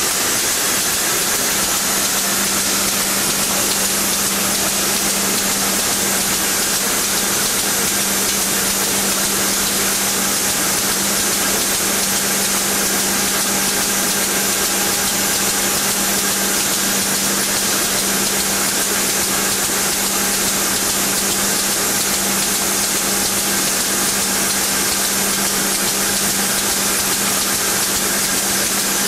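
Diaper and sanitary napkin production line machinery running steadily: a constant high hiss over a low, even hum.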